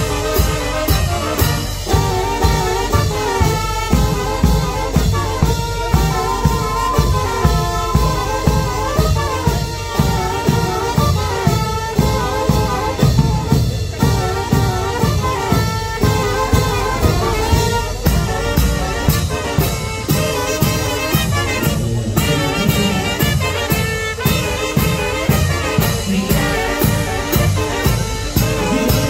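Brass band playing, trumpets and trombones over a steady drum beat of about two strokes a second.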